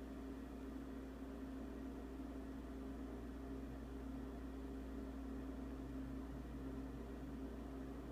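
Refrigerator running with a steady hum.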